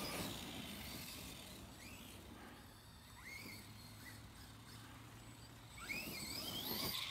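Radio-controlled trucks' electric motors whining faintly and intermittently, the pitch rising and falling with the throttle. There are a few short whines, clustered near the end.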